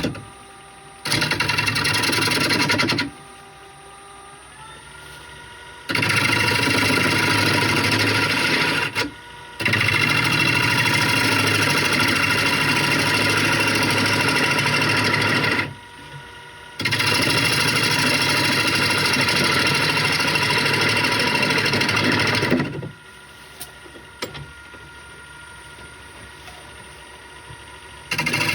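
A wood lathe spinning a wooden blank while a turning gouge cuts it in four long passes, each a loud rushing scrape lasting a few seconds. Between the cuts only the lathe's steady motor whine carries on.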